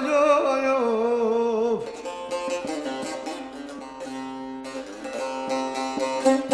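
Turkish folk song: a man's voice holds the last sung note with a wide vibrato, sliding down and ending about two seconds in, then a bağlama (long-necked saz) carries on alone with quick plucked notes over a steady open-string drone.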